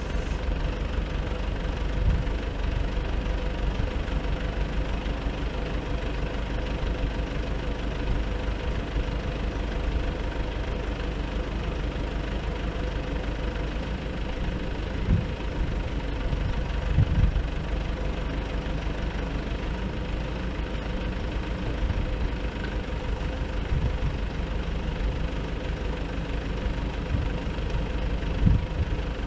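Nissan Cabstar truck's diesel engine running steadily to drive the hydraulics of its Multitel MT222AZ boom lift while the boom raises the basket, with a few dull thumps.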